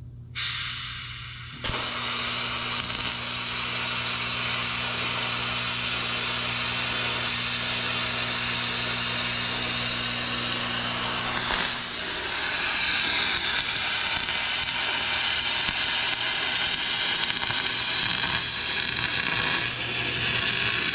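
MIG welding arc on machined aluminium V12 engine-block parts: a loud, continuous hiss that starts about a second and a half in. A low electrical hum runs under it and drops out about halfway, after which the hiss turns brighter.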